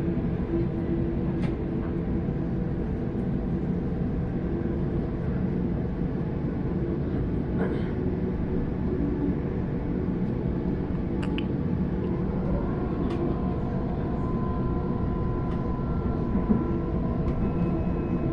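Steady running noise heard from inside a Sydney Trains Waratah double-deck electric train carriage: the low rumble of wheels on the track, with a few short clicks. A motor whine grows stronger about two-thirds of the way through.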